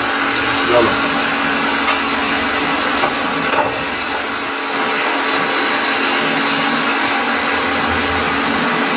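Metal lathe running: a steady machine hum with an even hiss, dipping slightly about four seconds in.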